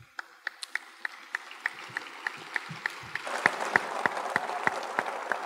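Audience applauding: a few distinct claps at about three a second at first, then the whole crowd joins in and the applause swells about three seconds in.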